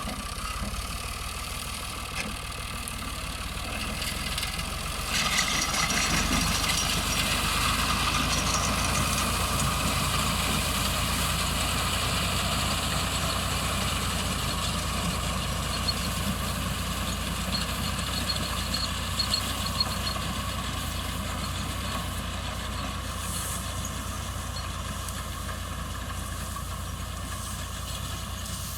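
Tractor-driven wheat thresher running steadily with its engine, growing louder about five seconds in.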